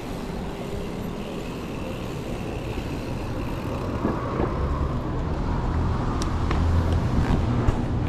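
Mountain bike rolling on asphalt, heard from a helmet camera: a steady rush of wind on the microphone and tyre noise that grows louder toward the end, with a few light clicks near the end.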